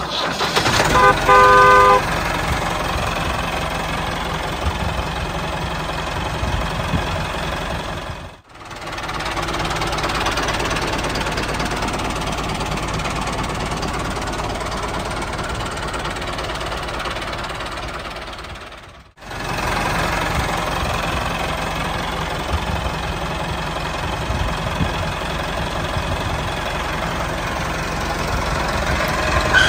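Tractor engine running steadily, with a horn tooting a few quick times about a second in. The engine sound cuts out for a moment twice.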